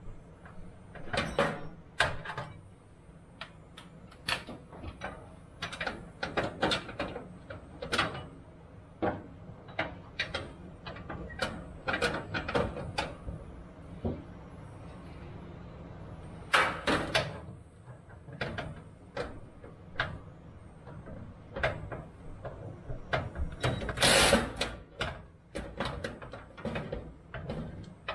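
Irregular metallic clinks, clicks and knocks of hand tools and parts being worked against the underside of a vehicle at its fuel tank, with two longer rattles, one a little past the middle and one near the end.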